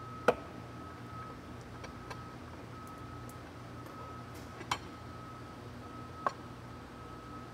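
Sharp metal clicks as a U-joint's bearing caps are pressed out of the driveshaft yoke on an arbor press: the loudest comes just after the start, two more follow later, and a few fainter ones fall between. A faint high beep repeats steadily in the background over a low hum.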